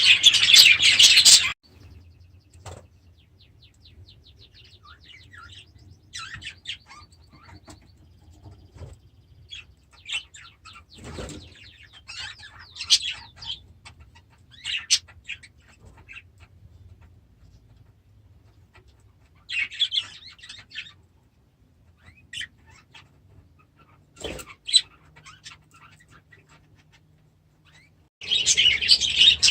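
Budgies chirping and chattering. Many birds call at once for the first second and a half, then only scattered chirps and short bouts of warbling follow. The full chorus starts up again near the end.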